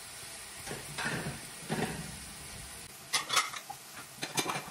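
Chicken frying in a hot pan, sizzling, while a utensil stirs it. In the second half the utensil clicks and scrapes against the pan several times.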